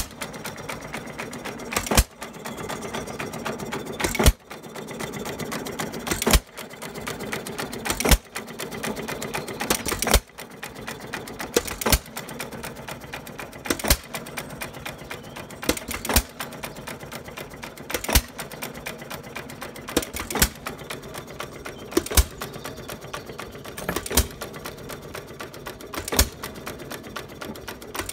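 1912 Fuller and Johnson farm pump engine, an air-cooled hit-and-miss stationary engine, running at a slow, fairly even beat: a sharp bang from the exhaust about every two seconds, with a steady light mechanical clatter between the bangs as it coasts.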